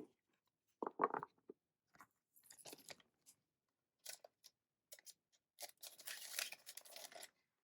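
Paper and plastic being handled: scattered short rustles and taps, then a longer stretch of crinkling near the end.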